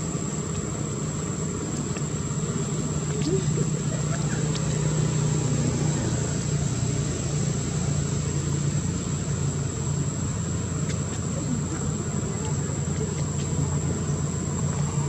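Steady low mechanical hum with a constant high-pitched whine above it, and faint scattered ticks.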